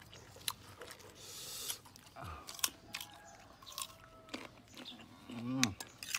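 Biting into and chewing crisp green ambarella fruit: a series of sharp, wet crunches. A short voiced sound about five and a half seconds in.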